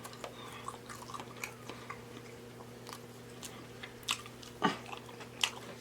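A person chewing food close to the microphone: soft chewing and mouth clicks, with a few sharper clicks in the second half, over a faint steady hum.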